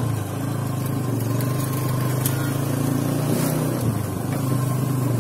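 Engine of a moving road vehicle running steadily, with road and wind noise. Its pitch dips just before four seconds in, then picks up again.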